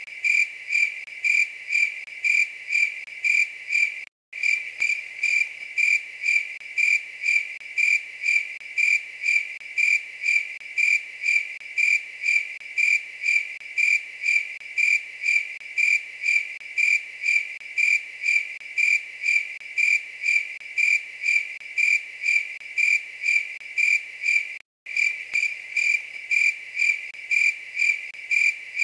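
A night-singing insect, called a grasshopper, chirping in short, even, high-pitched chirps about twice a second. The chirping cuts out briefly twice, once a few seconds in and once near the end.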